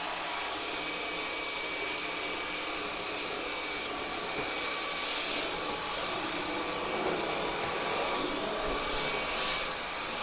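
Cordless stick vacuum cleaner running steadily while in use on the floor, a rush of air with a steady high motor whine over it.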